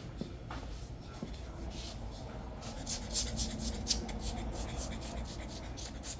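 Quick, repeated rubbing strokes against a hard surface, starting in earnest about two and a half seconds in, over a steady low hum.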